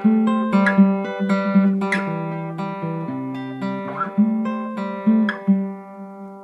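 Acoustic guitar music: slow plucked notes left to ring, with a last chord about five seconds in that fades away.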